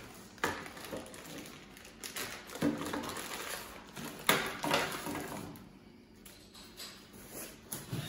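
Handling of a plastic-bagged remote control: plastic packaging rustling, with a few short light knocks as the remote and bag are set down on a wooden tabletop.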